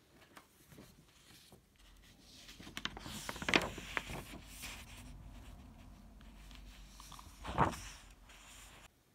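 Household handling noises: rustling and scraping with a few sharp knocks, the loudest about three and a half seconds in and another near the end, over a low hum that stops just before the end.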